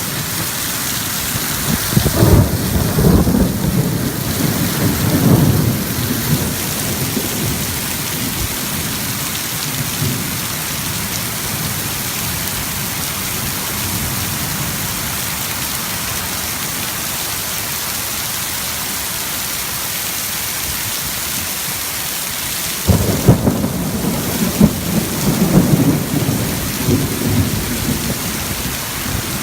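Heavy rain falling as a steady hiss, with a spell of loud low rumbling a couple of seconds in and again near the end.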